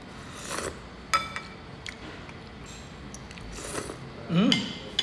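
Eating sounds: a metal spoon clinking against a dish just after a second in, with short slurps of beef bone-marrow soup from the spoon. Near the end a short rising hum of the voice, the loudest sound.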